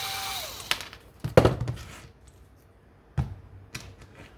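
A small electric motor whirs and winds down about half a second in. Then come four light knocks and clunks, with the loudest about a second and a half in, as RC truck parts are handled on a workbench.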